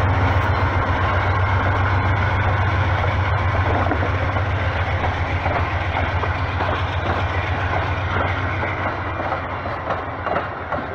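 Train rolling past close by: a steady low rumble with wheels clacking over the rails, easing slightly near the end.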